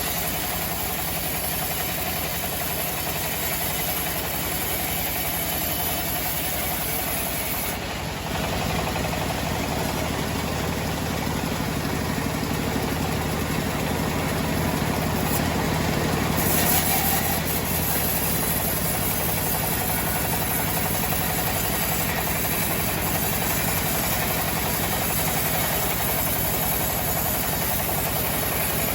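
Homemade sawmill running steadily, a continuous machine drone throughout. The high hiss thins out about a quarter of the way in and comes back about halfway through.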